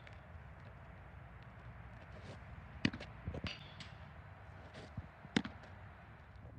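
Steady outdoor background noise with a few sharp knocks; the two loudest come about three and five and a half seconds in.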